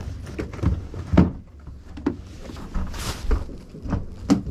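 Handling noise from a phone camera: irregular knocks and rubbing thuds as it moves against clothing, over a low steady rumble. The loudest thumps come about a second in and again near the end.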